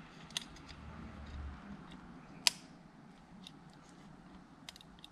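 Small plastic clicks and taps as a thin wiring connector is handled and pushed into the plastic controller box of an anti-sudden-start system; the sharpest click comes about two and a half seconds in, with a few fainter ticks around it.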